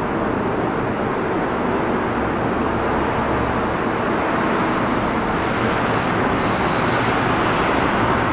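Steady road traffic noise: vehicles running along the street, an even rush with no siren or horn.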